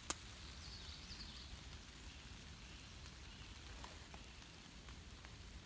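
Faint light rain with scattered drops ticking, and one sharp click just after the start.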